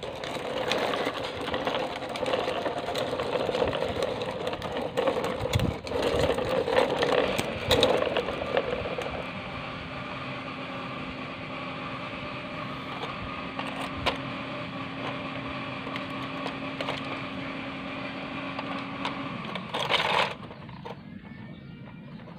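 Plastic toy truck rolling and scraping across a concrete floor, then the steady whir of a battery-operated walking toy animal's small gear motor, which stops about twenty seconds in.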